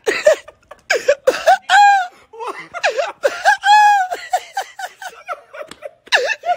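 A man laughing hard in repeated loud, high-pitched bursts, with two longer drawn-out cackles about two and four seconds in.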